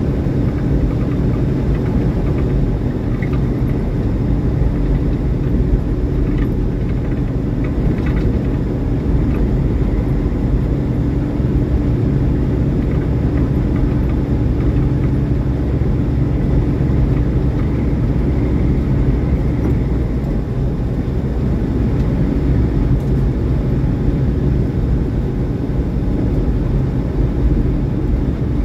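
Semi-truck's diesel engine and tyre noise while driving on the highway: a steady low rumble with no let-up.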